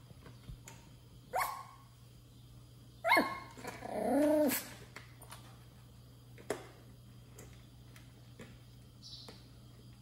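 Pomeranian puppy begging for food with barks and a whine: a short yap, then a sharp bark about three seconds in that runs straight into a longer whine, rising then falling.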